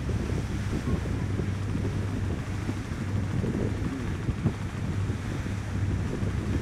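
Wind buffeting the microphone on the deck of a motorboat under way, over the steady low drone of the boat's engine.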